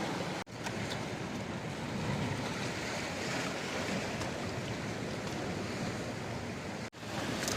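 Sea waves washing steadily against a rocky shore in a strong wind, with wind buffeting the microphone; the sound drops out for an instant twice.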